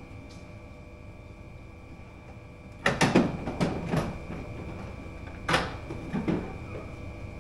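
Irregular knocks and clatters of hard objects being handled and set down: a quick cluster of about five about three seconds in, then a few more between five and a half and six and a half seconds.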